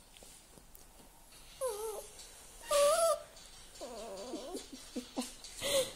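A poodle moaning in short wavering calls, several times in a row, as air is blown on her head. Two loud puffs of breath, about three seconds in and near the end, come with the moans.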